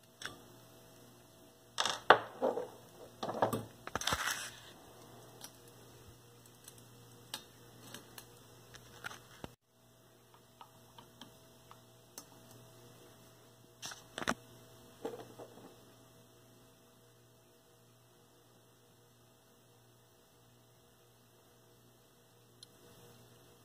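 Clicks and knocks of small torch parts and a screwdriver being handled, in a cluster about two to five seconds in and a few more around fourteen seconds, over a steady low mains hum. The last several seconds hold only the hum.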